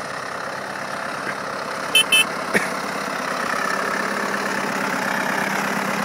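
Ford 7610 tractor's diesel engine running steadily, growing slightly louder toward the end. About two seconds in come two short high beeps in quick succession, then a sharp click.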